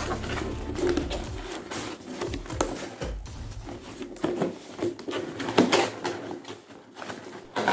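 A cardboard subscription box and its packaging being opened and handled by hand: an irregular run of rustles, scrapes and small knocks.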